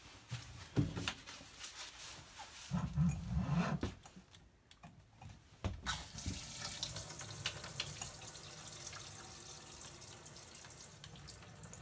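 A few knocks and handling noises, then about halfway in a pull-down kitchen faucet is turned on and water runs steadily into the sink.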